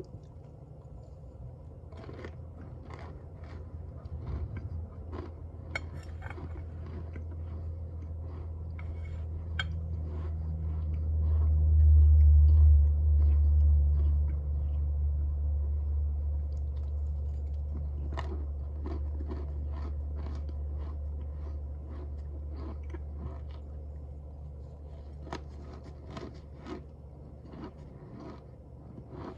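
Cornstarch crunching and squeaking as it is squeezed, a long run of short crisp crunches. Under them a low rumble swells about ten seconds in and slowly fades.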